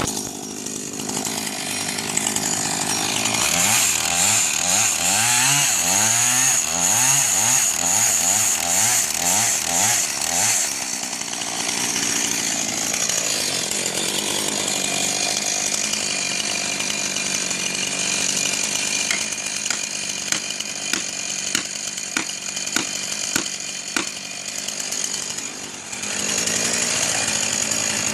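Chainsaw running while cutting a tree, its engine pitch rising and falling as it works in the cut, then running more steadily. A string of sharp clicks comes through in the second half.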